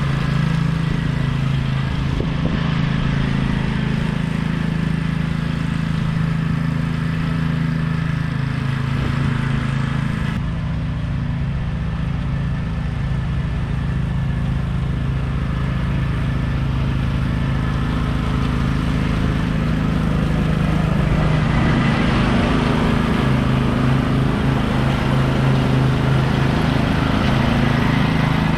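Troy-Bilt TB30R riding lawn mower's engine running steadily while mowing, a constant drone that grows louder about three-quarters of the way through.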